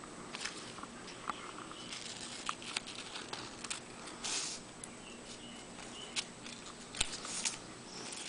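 A decal sheet being cut apart by hand: faint, irregular snips and clicks with light handling of the sheet, and a brief rustle about four seconds in.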